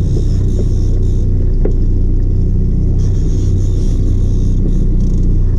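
Outboard motor idling with a steady low hum.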